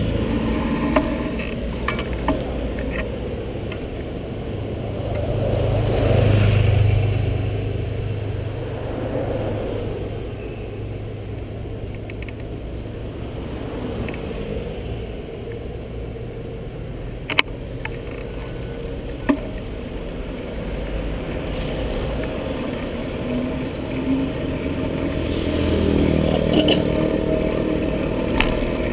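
Road traffic heard from a GoPro on a cyclist's helmet: a steady rush of road and wind noise, with passing vehicles swelling louder about six seconds in and again near the end. A few sharp knocks come through as well.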